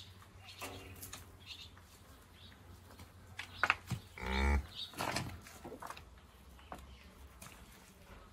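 Cow giving one short, low moo about four seconds in, while her calf suckles, with a fainter higher call near the start.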